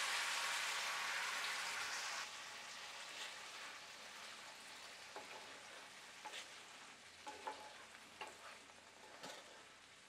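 Wet green masala paste sizzling in hot oil in a cast iron skillet, loudest at first and dying down after about two seconds. From about halfway, a wooden spatula scrapes and taps in the pan a few times as the paste is stirred.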